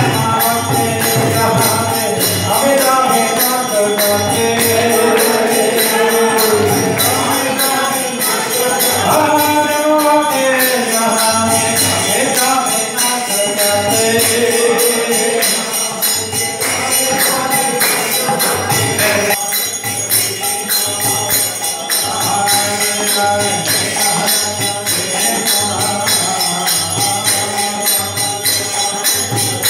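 Devotional kirtan: voices singing a bending melody over hand cymbals jingling without a break and a drum beating regularly, about once a second.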